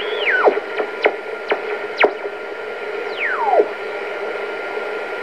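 BC-348-N valve communications receiver being tuned across a shortwave band: beat-note whistles sweep down in pitch as the dial passes signals, over steady band hiss. Several quick whistles come in the first two seconds, then a slower falling one about three seconds in.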